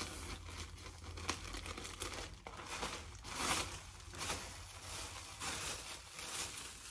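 Plastic packaging bag crinkling and rustling in irregular swells as it is handled and opened to take out a garment.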